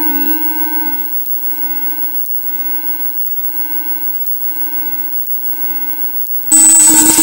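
Electronic test-tone noise music played over loudspeakers: a steady low buzzy tone with a row of higher overtones, swelling in a slow pulse a little more than once a second, turned down about a second in. Near the end a loud burst of harsh hiss with a high whistle cuts in for about a second. These are audio signals of the kind fed into televisions' video inputs to draw the striped patterns on screen.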